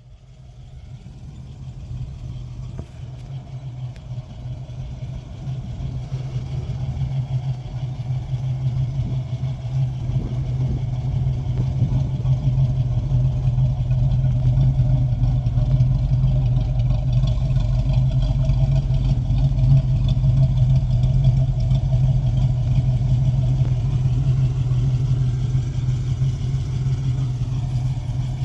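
1960 Chevrolet Corvette's 283 cubic-inch V8, fed by dual four-barrel carburetors, idling steadily. It grows louder over the first several seconds, then holds even.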